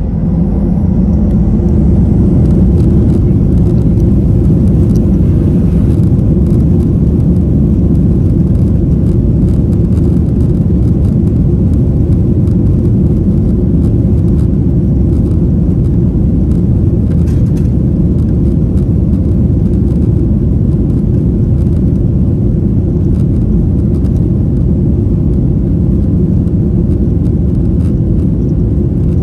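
Cabin noise inside a Boeing 737-800 rolling along the ground: a loud, steady, low rumble from its CFM56 engines and wheels, which rises sharply just as it begins.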